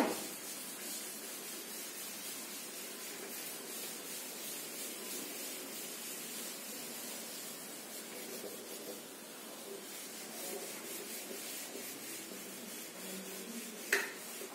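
A handheld eraser wiping a whiteboard in repeated strokes, a steady dry rubbing. There is a sharp tap at the start and another near the end.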